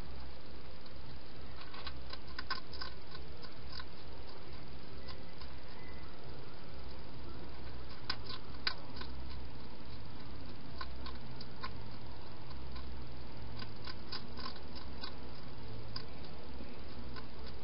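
Wild hedgehog eating from a bowl: clusters of small, sharp chewing clicks come every few seconds over a steady low hum.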